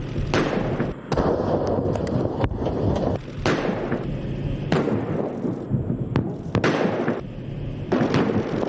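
Military weapons firing: a string of sharp shots or blasts, irregularly about one a second, over continuous heavy rumbling.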